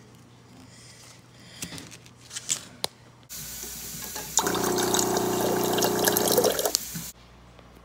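Water from a dispenser spout running into a glass mason jar, starting a little past three seconds in and cutting off suddenly about four seconds later. About a second into the pour a ringing tone of the jar filling comes in over the rush of water. A few light clicks and knocks come before it.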